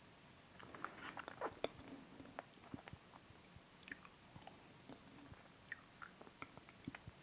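A person chewing food with soft, short crunching clicks. The crunches come thickest about a second in, then slower and more scattered.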